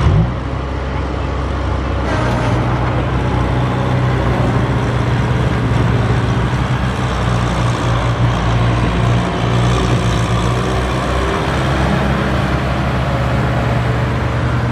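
Kubota tractor's diesel engine running steadily under load as it pulls a sack-laden trailer through soft, muddy ground.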